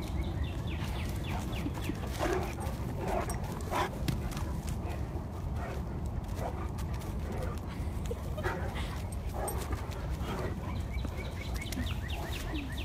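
Two dogs play-fighting, giving short barks and other brief vocal noises every second or so over a steady low rumble.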